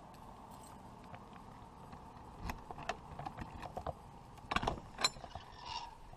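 Keys jangling, then a motorhome entry door's lock and paddle latch clicking as the door is unlocked and pulled open: a scattered run of small clicks and rattles, the sharpest about two-thirds of the way in.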